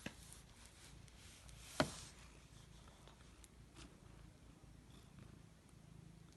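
Mother cat purring faintly while nursing her kittens, with one sharp click about two seconds in.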